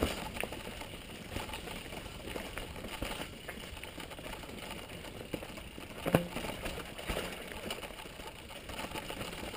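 Mountain bike rolling down a rocky, leaf-covered dirt trail: steady tyre and rolling noise with a few sharp knocks and rattles from the bike over rocks, the loudest about six seconds in.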